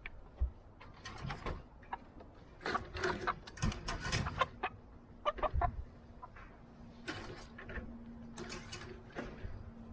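Chickens clucking among repeated knocks and clattering, with a faint steady hum starting about halfway through.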